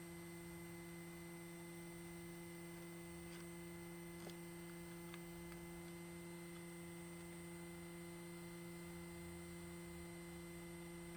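DeWalt DCE530N 18V cordless heat gun running, its fan motor giving a faint, steady hum with a higher whine, while it shrinks tubing over crimped connectors. A few faint ticks sound about three to five seconds in.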